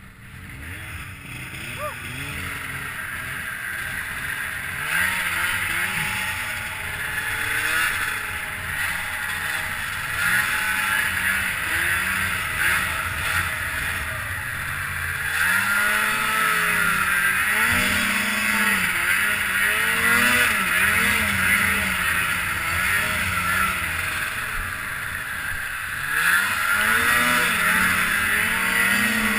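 Snowmobile engine revving up and down as the sled rides through powder, its pitch rising and falling every second or two over a steady rushing hiss.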